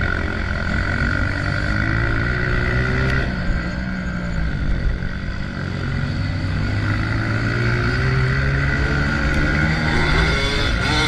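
Honda CRF125F's single-cylinder four-stroke engine running under varying throttle, its pitch climbing and dropping several times as the rider opens and closes the throttle while riding off-road.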